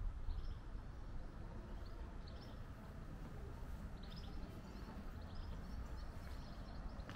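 Outdoor ambience: a steady low rumble with faint, short bird chirps now and then.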